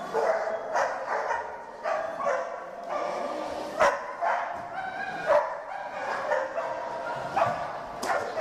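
A dog barking over and over, short sharp barks roughly once or twice a second, with two sharp knocks, one a little before halfway and one near the end.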